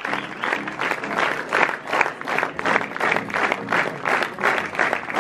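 A standing crowd applauding: many hands clapping together, loud and continuous.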